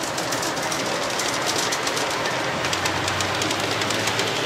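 Large-scale garden railway model train running on outdoor track, its wheels clicking rapidly over the rail under a steady rolling hiss. A low hum comes in about two-thirds of the way through.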